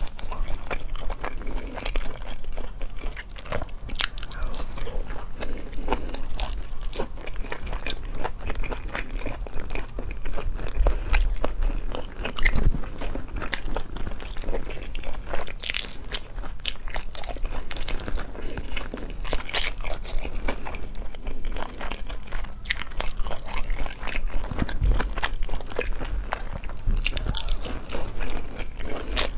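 Close-up mouth sounds of a person eating spicy braised meat: chewing and biting, with a steady run of short wet smacks and clicks.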